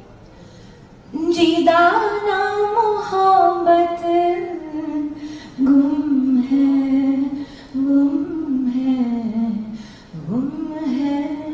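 A woman singing solo into a microphone, starting about a second in. She holds long notes that slide from one pitch to the next, with brief pauses for breath.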